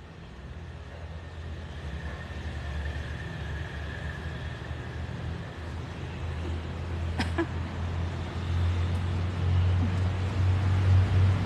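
Low rumble of road traffic, growing louder toward the end, with one sharp click about seven seconds in.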